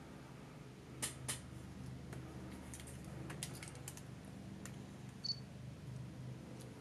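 Scattered light clicks and taps over a low, steady pulsing hum, with one short high-pitched clink about five seconds in.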